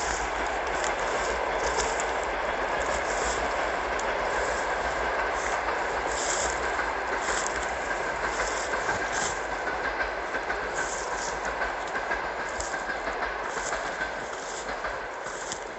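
A steady hiss with a faint steady tone in it, and crisp rustling crunches about once a second, like footsteps through dry fallen leaves; the hiss fades a little near the end.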